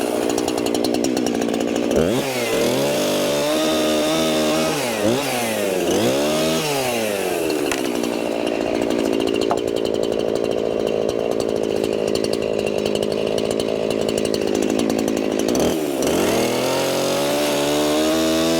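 Gasoline chainsaw revving up and down several times, then held at full speed for several seconds in the middle before dropping and revving up again near the end.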